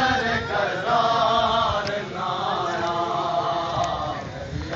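A group of men chanting a Muharram mourning chant (noha) together in drawn-out sung phrases, over crowd noise.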